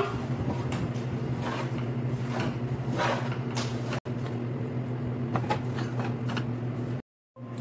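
A spatula stirring and scraping roasted sesame seeds and jaggery syrup in a nonstick frying pan, in a run of irregular short strokes over a steady low hum. The sound cuts out briefly near the end.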